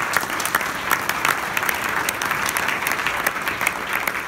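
Conference audience applauding, many people clapping at once in a large hall.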